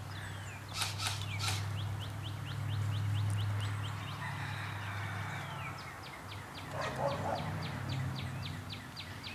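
A bird calling over and over: a fast, even series of short high chirps, each sliding down in pitch, about three a second, under a steady low hum. Two or three sharp clicks come about a second in.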